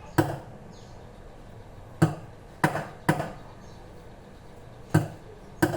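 A series of six sharp knocks of a hard object against a hard surface, spaced unevenly about half a second to two seconds apart.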